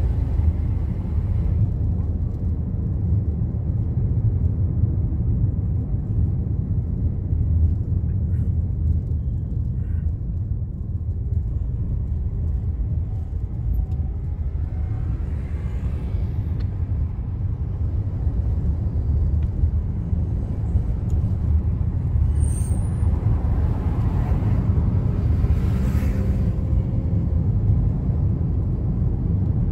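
Steady low rumble of a car's engine and tyres heard from inside the moving car's cabin. A few brief, higher sounds rise over it around the middle and again near the end.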